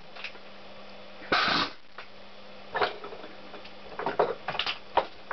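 Workshop sounds of dismantling a motorcycle engine: one short noisy burst from a pneumatic tool about a second and a half in, then several sharp metal clicks and clinks of tools on the crankcase, over a faint steady hum.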